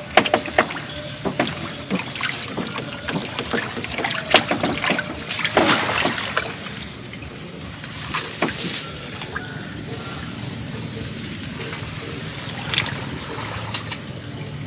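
Water splashing, dripping and sloshing, with sharp knocks and rattles, as a fish trap is worked in the water. The splashes are busiest in the first half, biggest about six seconds in, then settle over a steady low hum.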